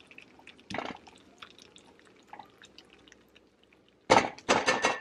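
Thick homemade tomato pizza sauce simmering in a stainless steel frying pan, its bubbles popping with scattered small plops and spatters, one louder pop about a second in and a quick run of louder splutters near the end. The sauce is being reduced on low heat until its water cooks off and it turns thick.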